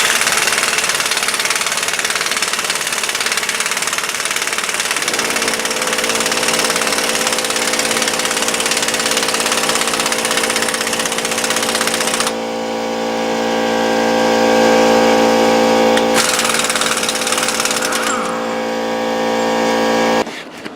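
Air impact wrench hammering on the 35 mm nut that holds the axle shaft in the front wheel hub, loosening it. A steady hum from the tool joins in after a few seconds. About midway the hammering drops away for a few seconds, leaving mostly the hum, then returns briefly before the tool stops.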